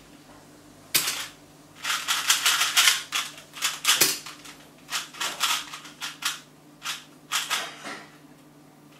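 2x2 speed cube turned very fast in a speedsolve: a dense run of sharp plastic clicks, framed by a hard keyboard key hit about a second in that starts the timer and another about four seconds in that stops it. Shorter bursts of cube turning follow.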